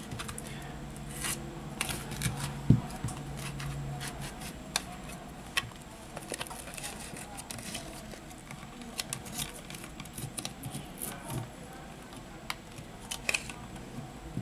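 Plastic opening pick scraping and clicking along the glued edge of a Samsung Galaxy S10+ back glass, working through the adhesive, with small taps from the phone being handled. Scattered short clicks, the loudest about three seconds in.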